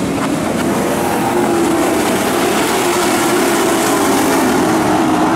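Engines of several dirt-track race trucks running as the field circles the track, a steady drone whose pitch wavers and rises slightly toward the end.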